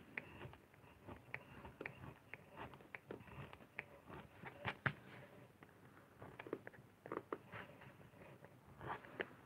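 Lino cutting gouge carving into a lino block: faint, irregular scraping clicks, a few a second, loudest a little before halfway through.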